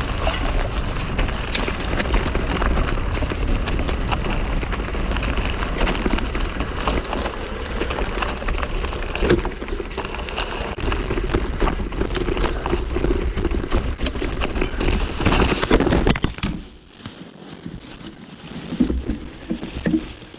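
A mountain bike rolling over dry leaf litter and rocks: a steady rush of tyre and trail noise, dense with small crackles, rattles and knocks. About sixteen seconds in it drops away suddenly as the bike stops, leaving a few short low sounds near the end.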